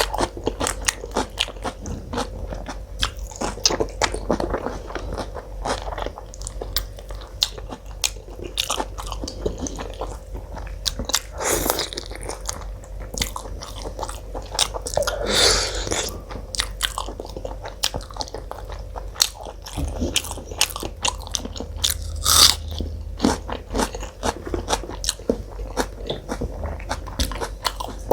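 A person eating: steady wet chewing and biting of food, full of small clicks, with a few louder bites along the way.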